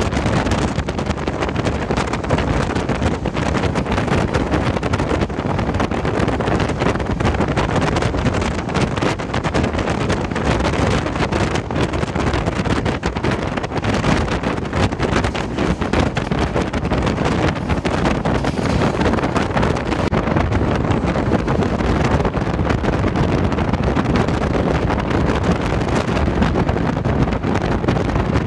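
Steady rush of wind on the microphone over the running noise of the Humsafar Express passenger train on the move, heard from on board.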